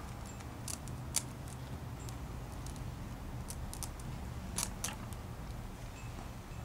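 Scattered sharp clicks and crinkles of artificial flower stems and their plastic leaves being handled and pushed into a floral arrangement, the loudest about a second in and twice about four and a half seconds in, over a steady low background rumble.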